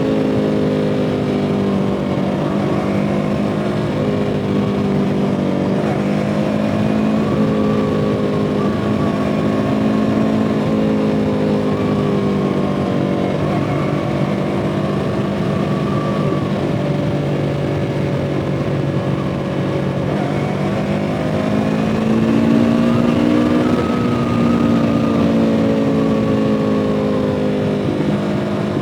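2017 Yamaha R3's 321 cc parallel-twin engine running under way, its pitch rising and falling several times as the revs change, with short breaks in the engine note between the climbs.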